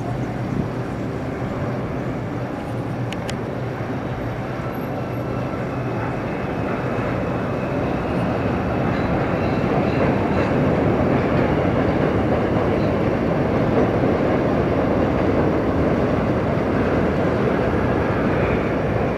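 New York City subway train of R142 cars pulling out of an elevated station and running past, with a steady rail noise that grows louder about halfway through and then holds.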